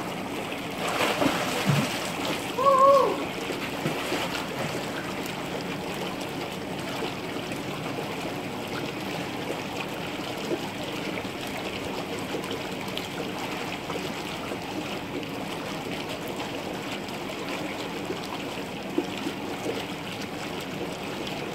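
Swimming-pool water splashing and sloshing as a child swims, over a steady rushing wash of water. A short high-pitched call rings out about three seconds in.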